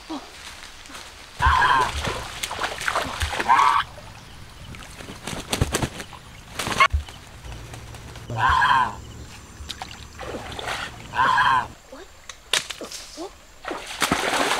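Domestic goose honking: a few loud, harsh calls spaced a few seconds apart, with water splashing near the end.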